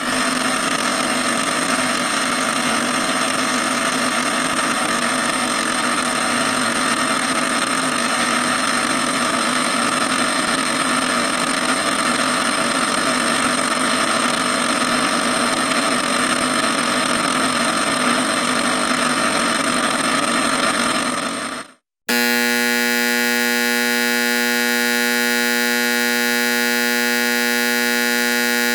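Electric buzzer sounding continuously with a harsh, raspy tone for about twenty seconds, then fading out. After a brief gap a second buzzer starts abruptly with a cleaner, steady, pitched drone and holds.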